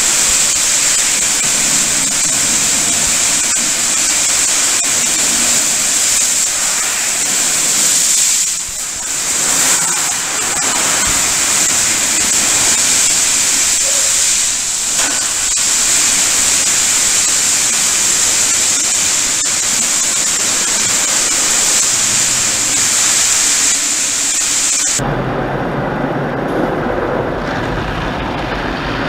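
Automatic car wash running: a loud, steady hissing rush of water spray and rotating brushes. Near the end the sound changes abruptly to a duller, lower rush as water sheets over the glass.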